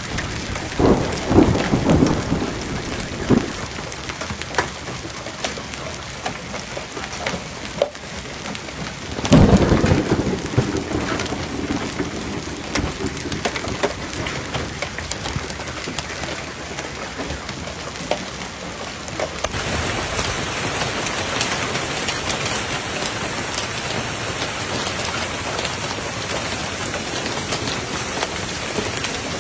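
Heavy rain pounding down through a thunderstorm, with thunder rumbling loudly about a second in and again about nine seconds in. About twenty seconds in the sound switches abruptly to a denser, hissier downpour.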